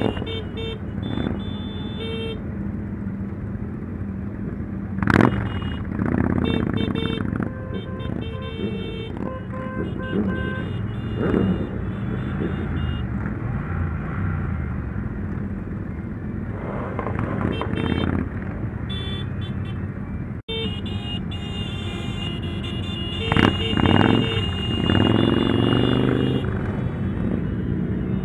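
Many motorcycles riding together in a mass ride, engines running with revs rising and falling now and then, and occasional horn toots.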